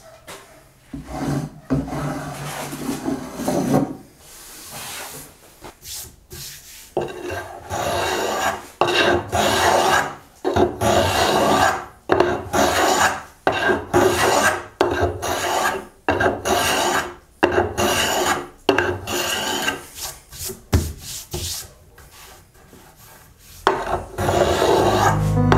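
Repeated rasping strokes of a hand tool worked along oak, each about a second long, with quieter pauses between runs of strokes.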